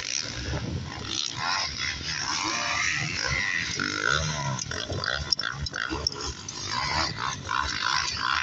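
Several motocross bikes' engines revving up and down as riders come over a jump and past on a dirt track. The engine pitch rises and falls throughout, with a clear rev sweep about four seconds in as one bike passes close.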